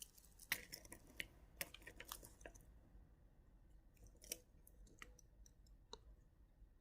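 Faint small clicks and taps of watchmaking tools on a Seiko 7S26 watch's metal parts: a quick cluster in the first two and a half seconds, then single clicks about a second apart.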